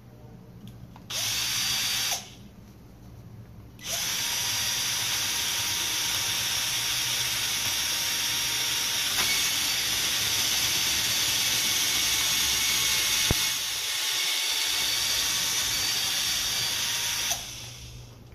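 Cordless drill with a twist bit boring into a foam surfboard: a short burst of about a second, then a long steady run with a whine of about thirteen seconds, which stops near the end.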